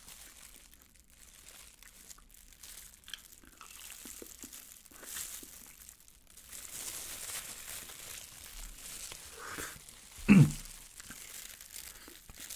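Eating sweet-sauced Korean fried chicken (yangnyeom chicken) with a plastic-gloved hand: the thin plastic glove crinkles, and the thick fried batter crunches under scattered small bites. About ten seconds in there is one brief, loud voiced sound from the eater.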